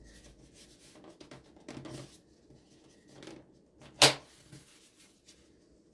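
Hands handling a foam model jet's fuselage: scattered rustles and light knocks, with one sharp click about four seconds in.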